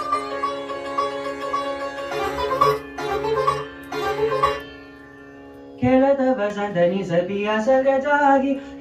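Indian classical song accompaniment: a plucked string instrument plays over a steady drone, then falls quiet just before the middle. About six seconds in, a male voice comes in singing a long, wavering melodic line over the drone.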